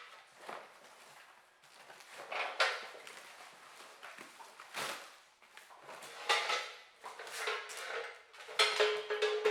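Steel sawmill parts being lifted out of a box and set down: several irregular clanks, rattles and scrapes a second or so apart.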